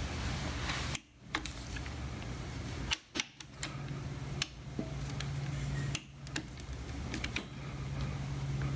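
Click-type torque wrench and socket working a bolt: scattered sharp ratchet clicks over a steady low hum, broken by a few brief quiet gaps. The bolt is being tightened to its specified torque.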